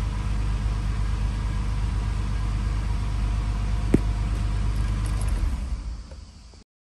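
Porsche 911 Carrera's flat-six engine idling steadily at about 1,000 rpm with its throttle-body connector unplugged, then switched off and dying away near the end. A single sharp click about four seconds in.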